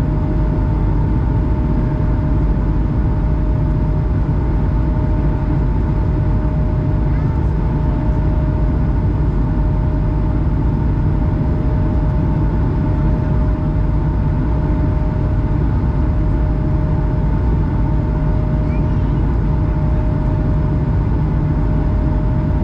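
Airbus A220's Pratt & Whitney PW1500G geared turbofan engines at climb power, heard inside the cabin: a steady, loud, deep drone with two unchanging tones held above it.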